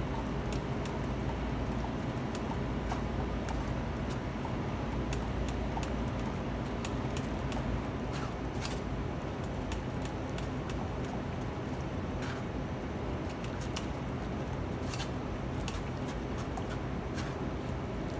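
Metal ladle scraping and tapping against a stainless-steel mesh strainer as tomato pulp is pressed through it, in scattered sharp clicks and scrapes. Under it runs a steady low machine hum.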